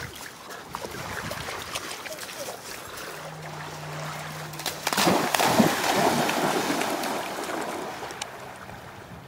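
Dobermanns splashing through shallow lake water: a spell of splashing starts about five seconds in and fades over the next couple of seconds. A faint steady low hum runs just before it.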